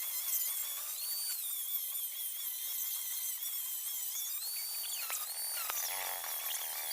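Handheld electric power tool whining at a high, steady pitch, the pitch rising briefly twice as the load comes off it.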